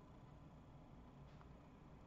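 Near silence: room tone, with one faint click about halfway through.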